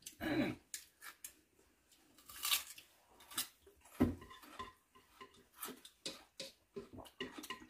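A metal spoon scraping and clinking inside a metal cooking pot as pumpkin porridge is spooned out, in scattered short strokes with a sharper knock about four seconds in.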